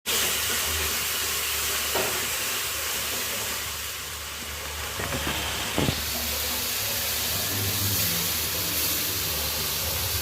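Chicken sizzling as it fries in a pan with a steady hiss, with a few short knocks, about three, against the pan.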